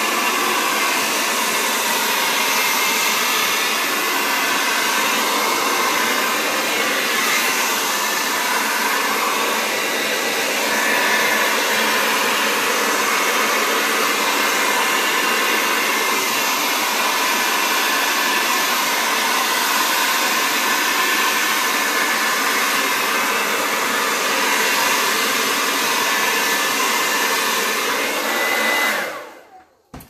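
Hair dryer blowing steadily on the wet acrylic paint, switched off near the end.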